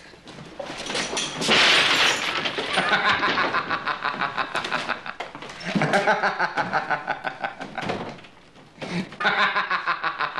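A glass bottle smashes about a second and a half in, followed by a man laughing loudly in long pulsing bursts, with short breaks near six and nine seconds.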